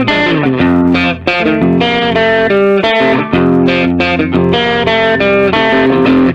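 Upbeat instrumental music led by electric guitar over a steady bass line; it cuts off abruptly at the very end.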